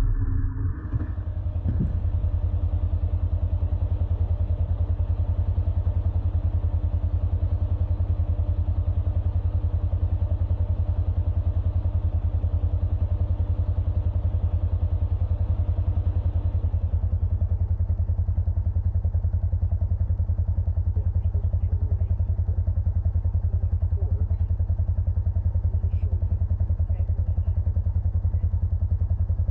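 Vehicle engine idling steadily with an even low pulse. A higher steady hum over it stops a little over halfway through.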